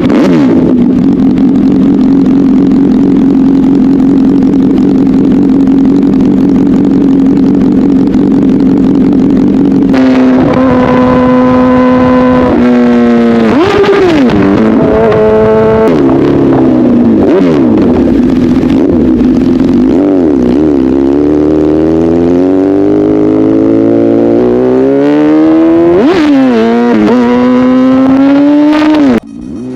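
Honda CBR1000RR inline-four running through an SC-Project aftermarket exhaust, loud. It idles steadily for about ten seconds, then is revved: quick blips up and down, a slow climb in revs, and a final rev before the sound cuts off near the end.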